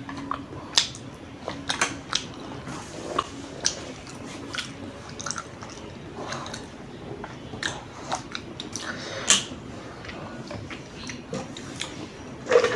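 Close-miked chewing of noodles: irregular, crisp mouth clicks and crunches, with a louder knock near the end.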